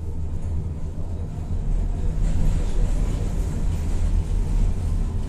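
Tatra-Yug K1M tram running along the rails: a steady low rumble that grows louder about two seconds in.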